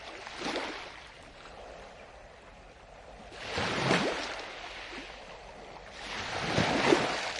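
Water washing and sloshing in three swells, each building and falling away within about a second. The first is short and faint; the next two, about four and seven seconds in, are the loudest.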